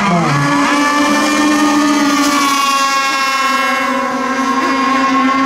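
Radio-controlled racing boats running at speed: a steady, high-pitched motor whine that holds its pitch.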